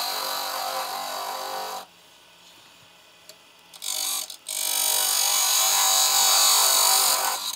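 Turning tool cutting a spinning wood spindle blank on a Record Power lathe: a steady high hiss of the cut. About two seconds in the cut stops and the sound drops almost to silence, with a short burst of cutting near four seconds, then the cut resumes and runs steadily.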